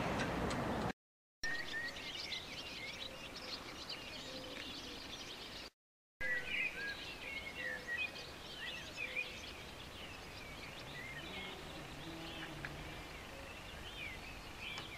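Songbirds singing, a busy run of short high chirps and warbles over a faint steady hiss, broken twice by brief dead-silent cuts.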